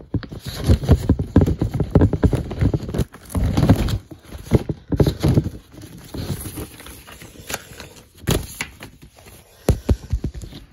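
Handling noise from a vinyl record being slid back into its cardboard album jacket and paper sleeve close to the microphone. It is a dense run of irregular knocks, rubs and rustles that thins to scattered sharp clicks in the second half.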